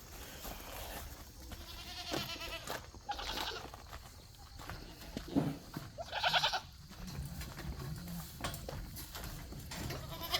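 Goats bleating: a few short wavering calls, the loudest about six seconds in, from bucks waiting on their grain.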